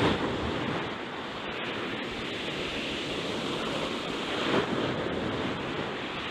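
Sea waves washing on the shore: a steady rushing noise that swells briefly about four and a half seconds in.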